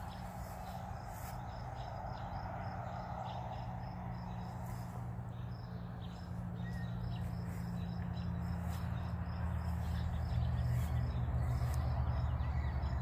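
A cricket chirping steadily, about three high chirps a second, over a low outdoor rumble that grows louder in the second half.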